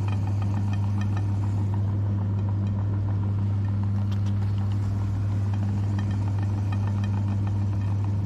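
Electric meat grinder motor running with a steady hum, with light ticks and crackles throughout as the grinder works.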